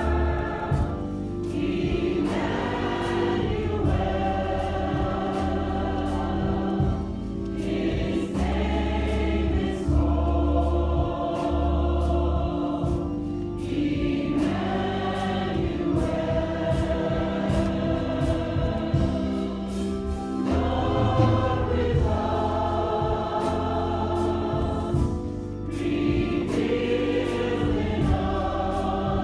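Church congregation singing a gospel song together in long held phrases that pause briefly every several seconds. Steady low bass notes and short sharp beats run underneath.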